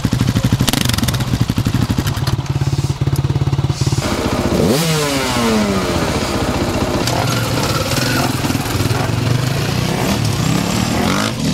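Enduro dirt bike engines running close by, first idling with a quick, even beat. About four seconds in the sound changes to revving, the pitch falling and then rising again as a bike pulls away near the end.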